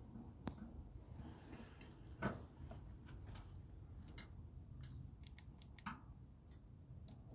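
Faint, scattered clicks and light taps from hand work on small metal parts and tools, with two louder knocks and a quick run of sharp clicks late on.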